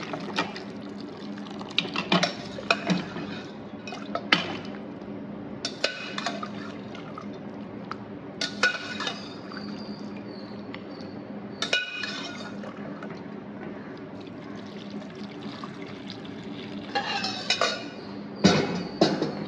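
Boiled mutton trotters and their stock being poured into a pan of masala, the liquid splashing in, with sharp metal clinks of the spoon and vessel against the pan now and then and a quick cluster of them near the end. A steady low hum runs underneath.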